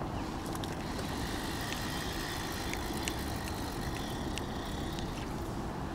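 Steady wind rumble on the microphone, with the faint whir and scattered clicks of a spinning reel being wound in as a hooked fish is brought to the bank.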